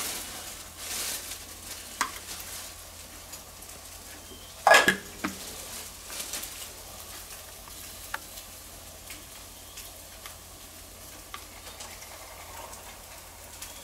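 A steady low sizzling hiss from an electric milk frother heating and whisking milk, with a sharp knock about five seconds in.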